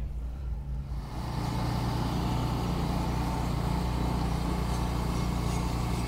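A motor vehicle's engine running with a steady low hum; about a second in, a louder rushing noise joins it and holds.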